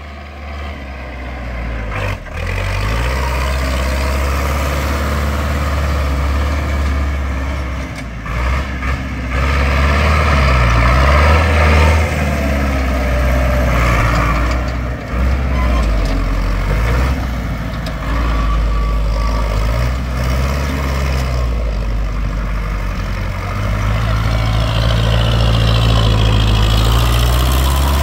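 Tractor engine running, its pitch rising and falling with the throttle.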